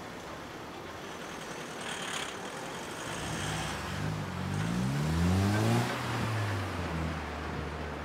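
A car driving past and accelerating, its engine note rising and getting louder, loudest about six seconds in, then easing off to a steady hum. A steady hiss runs underneath.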